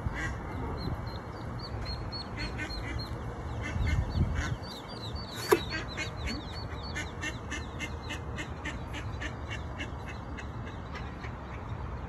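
A brood of ducklings and their mother duck calling: a rapid run of short, high, falling peeps with quacking among them. A single sharp click sounds about halfway through.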